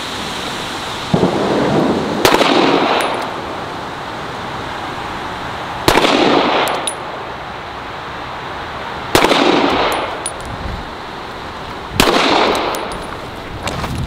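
Handgun fired at a slow, deliberate pace, about three seconds between shots. Each crack is followed by a short echo.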